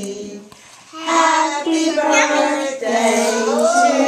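Children singing a birthday song together: a held note, a brief pause, then the singing starts again about a second in with sliding pitches.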